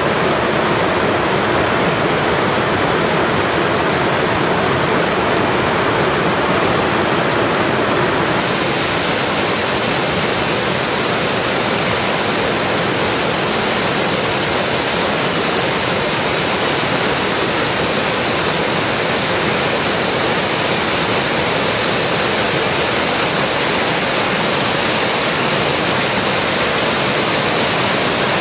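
Steady, loud rush of a tall waterfall crashing down onto rocks and churning white water. It gets a bit hissier about eight seconds in.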